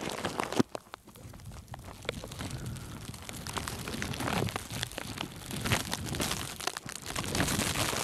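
Crunching and scuffing in deep snow, with scattered clicks, one sharp crack about half a second in, and a steady rustling hiss.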